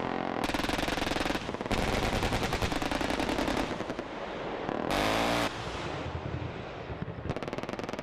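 Long bursts of rapid automatic gunfire, a fast stream of shots, with a short louder sound about five seconds in and another burst starting near the end.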